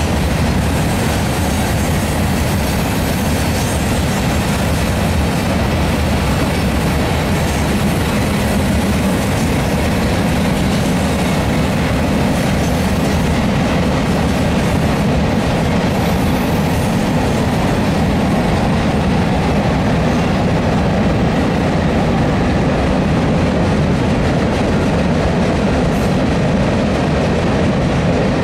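Freight cars of a Union Pacific manifest train (covered hoppers, then boxcars) rolling past at close range: a loud, steady rumble and clatter of steel wheels on the rails.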